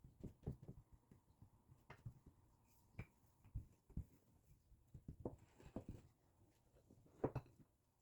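Faint food-preparation handling noises: scattered light knocks and clicks, the loudest about seven seconds in.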